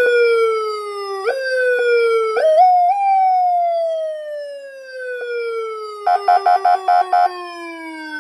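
A 20 W electronic motorcycle police siren sounds through its horn speaker, its tone gliding down in pitch. It jumps back up twice in the first few seconds, then falls slowly for about five seconds. About six seconds in, a rapid pulsing tone of about six pulses a second plays over it for about a second.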